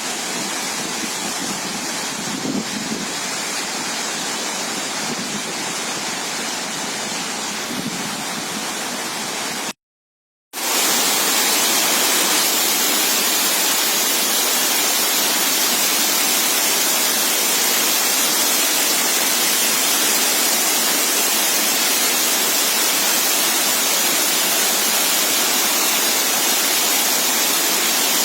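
Waterfall: a steady, even rush of falling water. A little under ten seconds in, the sound cuts out completely for under a second, then comes back louder and brighter.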